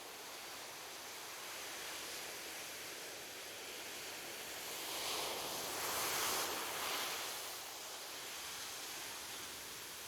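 Ocean waves breaking on a beach, a steady wash of surf with one wave swelling louder from about halfway through and fading again near the end.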